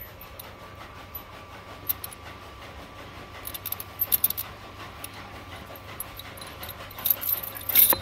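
Rusty iron tether chain clinking and rattling in scattered bursts as it is fed through an iron ring set in a concrete wall, loudest near the end.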